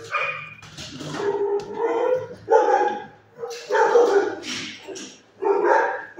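Kennelled shelter dogs barking repeatedly, about one bark a second.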